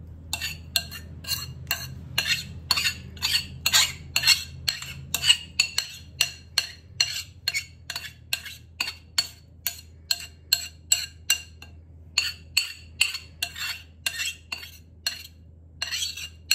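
A metal spatula scraping and knocking against a ceramic mixing bowl as a thick potato-and-cheese mixture is scooped out. It makes a steady run of sharp clinks, about two or three a second, with a short pause about two-thirds of the way through.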